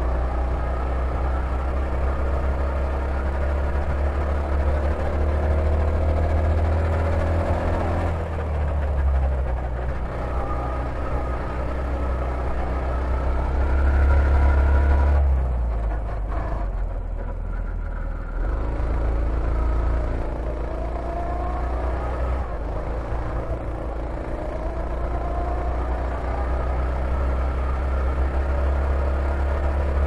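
Go-kart engine heard from the driver's seat, running hard with its pitch rising again and again as it accelerates out of corners. Around the middle the engine note falls back for several seconds as the throttle comes off for a turn, then climbs again.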